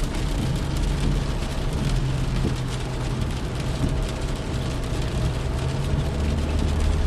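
Rain pattering on a car's roof and glass, heard from inside the car: a dense, even patter of drops over a steady low rumble.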